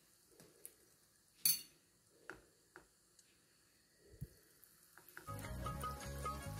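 Faint sizzle of hot oil in a miniature wok, with a few sharp little clinks of small utensils on the pan and plate. About four seconds in, a mini spring roll is slipped into the oil. Background music comes in near the end.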